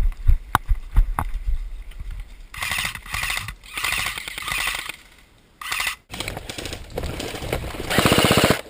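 Airsoft guns firing on full auto: several bursts of rapid, evenly spaced pops, the last one near the end the loudest. A few dull thumps come in the first second.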